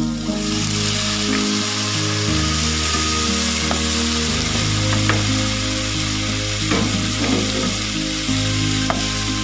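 Pineapple chunks dropped into hot oil in a wok with shrimp and garlic, setting off a sudden sizzle that runs on steadily. From about halfway on, a spatula stirring the pan clicks and scrapes against it a few times.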